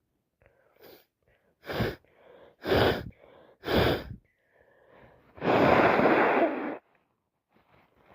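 Woman with a cold sneezing: three short sneezes about a second apart, then a longer, louder burst lasting over a second.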